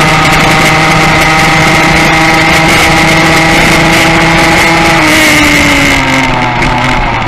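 Racing motorcycle engine heard onboard, held at high revs with a rush of wind noise. About five seconds in the revs fall away as the rider rolls off the throttle for a bend.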